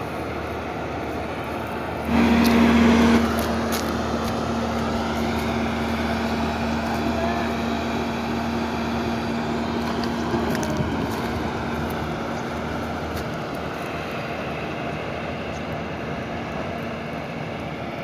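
Combine harvester running steadily under load as it threshes wheat and blows chopped straw and chaff out of its rear chute. The machine noise jumps louder about two seconds in, when a steady hum sets in that fades toward the middle.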